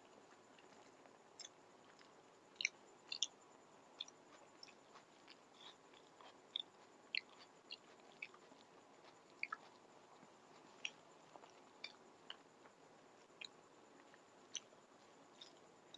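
Faint close-up mouth sounds of someone eating a mouthful of rice and curry: scattered short wet clicks and smacks at irregular intervals, over a quiet background.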